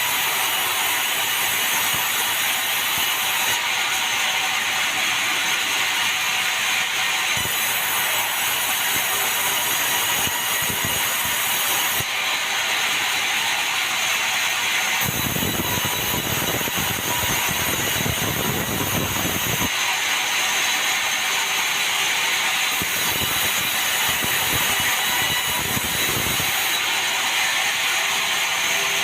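Sawmill saw running steadily through meranti timber. A deeper rumble joins in twice, for about four seconds roughly halfway through and for about three seconds near the end.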